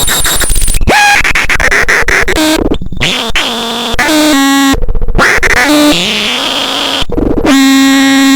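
Homemade DIY synthesizer playing harsh noise: buzzing tones that swoop and fall in pitch over dense crackle and clicks. The sound cuts out abruptly a few times, near the 3, 5 and 7 second marks, then comes back.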